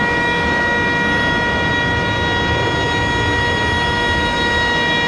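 Auxiliary power unit of a Frontier Airbus A320neo running at the gate with its engines shut down: a steady whine over a broad rushing noise.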